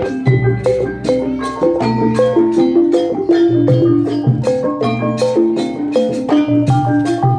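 Banyuwangi gamelan accompanying a barong performance: struck metal keyed instruments play quick, repeated notes over low held tones.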